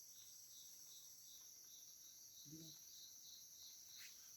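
Tropical forest insects: a faint steady high-pitched drone, with one insect chirping about three times a second through most of the stretch.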